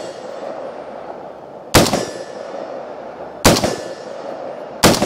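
Three single shots from a PSA H&R retro M16A1 rifle firing 5.56 mm 55-grain ammunition, about a second and a half apart. Each shot is followed by a long ringing tail as the steel targets ring.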